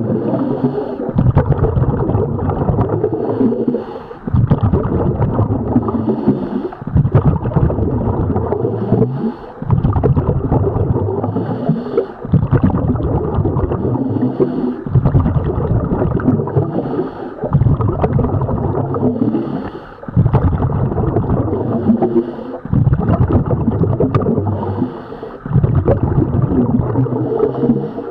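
Scuba diver breathing through a regulator underwater: bursts of bubbling exhalation alternate with short breaks and a higher hiss, in an even cycle about every two and a half seconds.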